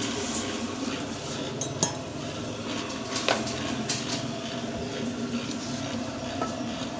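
A Chung Hou 20-litre planetary mixer with a V-belt drive running at its first speed with a steady, smooth hum. Sharp metallic clinks come through it, the loudest about 2 seconds and 3 seconds in.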